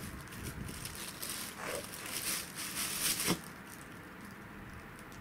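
Thin plastic bag crinkling and rustling in irregular bursts as a dog noses and paws at it, stopping about three and a half seconds in.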